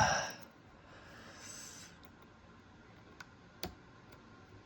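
Faint handling of small metal lock parts, with two short sharp clicks a little past halfway, as driver pins are loaded back into a Mul-T-Lock Junior's pin chambers.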